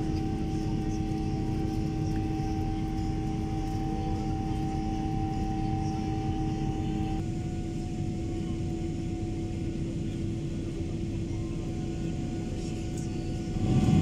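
Airliner's turbofan engines heard from inside the passenger cabin during the climb after takeoff: steady engine noise with a couple of held hums. The hums shift abruptly about seven seconds in, and the noise gets louder just before the end.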